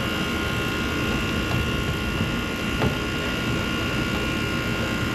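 Air-conditioning condensing unit running: a steady fan and compressor hum with a few steady high whining tones, and one light click about three seconds in.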